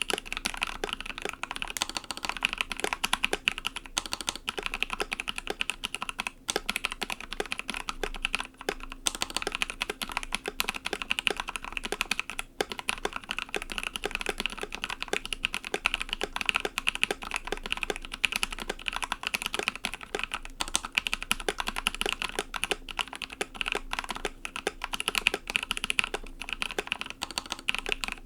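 Steady, fast typing on an Ikki68 Aurora mechanical keyboard fitted with Pixel long-pole linear switches lubed with 205g0, with keys bottoming out and springing back in a dense run of clicks.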